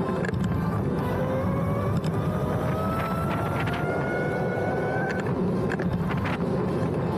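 Electric scooter riding, with steady wind and road rumble and a thin motor whine that climbs slowly in pitch over a couple of seconds midway, as when accelerating.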